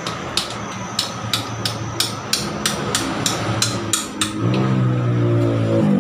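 Hammer tapping on metal in a steady rhythm, about three strikes a second for some four seconds, as the engine is worked into place in the motorcycle frame. Then a steady low mechanical drone starts and runs on.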